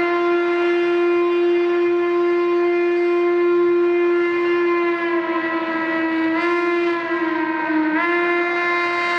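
Steam whistle of 2-6-6-2 Mallet locomotive 1309 held in one long, loud blast, its pitch sagging briefly and coming back up twice in the second half.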